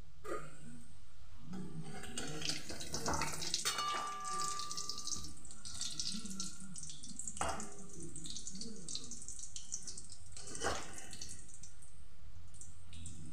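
Chicken balls deep-frying in a kadai of hot oil over a medium-to-high flame: the oil sizzles and crackles steadily, with a few sharp clicks.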